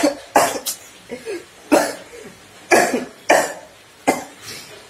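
A boy coughing repeatedly, about six or seven short coughs spread over four seconds, acted to portray a COVID-19 patient.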